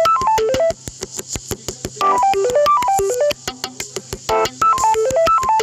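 Samsung Galaxy A50s ringtone playing: a synthesized melody of short notes stepping up and down in a phrase that repeats about every two and a half seconds, over a fast ticking beat.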